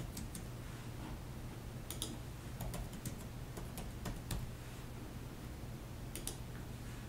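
Computer keyboard typing: scattered, irregular keystroke clicks over a low steady hum.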